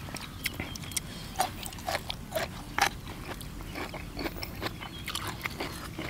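Close-miked eating: two people chewing and biting into spicy glass-noodle seafood salad and crisp raw vegetables, giving scattered crunches and wet mouth clicks at an irregular pace of about two a second.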